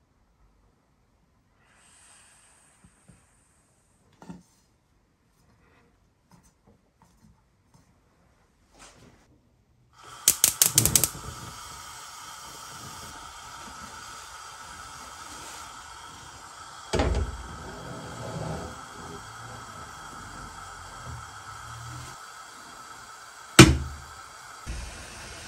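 Faint handling of a metal pot lid, then a gas hob's igniter clicking rapidly for about a second and the burner flame hissing steadily once lit. Over the hiss a metal pot is set down on the grate with a clunk, and near the end a loud metal clank as a heavy metal vessel is placed on the lid to weigh it down.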